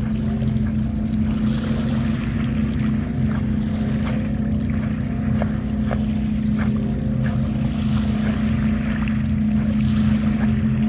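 Motorboat engine idling with a steady low hum, with light water splashes over it.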